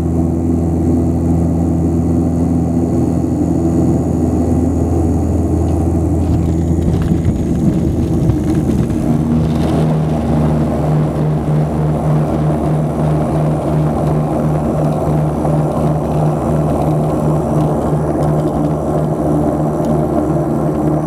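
Cabin sound of an Antonov An-24RV's two turboprop engines and propellers droning as the airliner rolls along an unpaved grass runway, with rumble from the rough ground. About seven to eight seconds in, the propeller drone shifts pitch and settles into a higher, pulsing tone.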